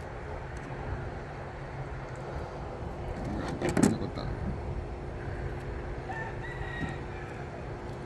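A rooster crowing faintly about six seconds in, over a steady background hum. A short clattering knock comes about three and a half seconds in.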